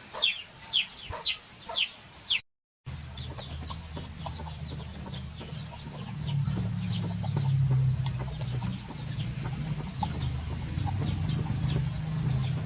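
Repeated high, falling chirps, about two a second, that cut off abruptly a little over two seconds in. They are followed by a steady low hum with faint scattered chirps and clicks.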